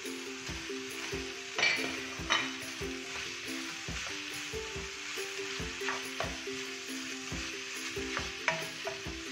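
Diced chicken filling with carrots and potatoes sizzling in an oiled non-stick wok over a gas flame while a spatula stirs it. A few sharper knocks of the spatula against the pan stand out, the loudest about one and a half to two and a half seconds in.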